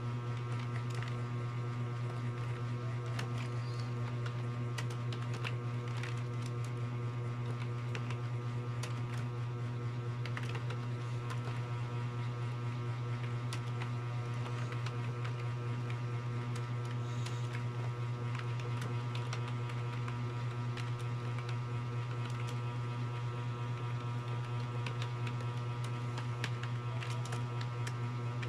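Keys being typed in a fast, irregular patter of faint clicks, over a loud steady electrical hum with many overtones.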